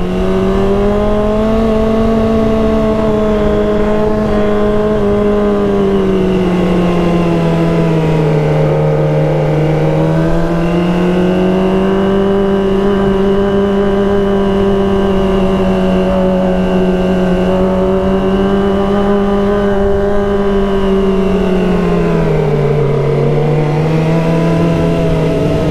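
Kawasaki ZX25R's 250 cc inline-four engine running at steady cruising revs while riding. Its pitch eases down twice, about eight seconds in and again near the end, and climbs back each time.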